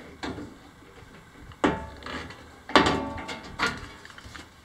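Aluminium diamond-plate sheet being handled against a wooden deck: a few sharp clanks and knocks, the loudest about three seconds in, each with a short metallic ring.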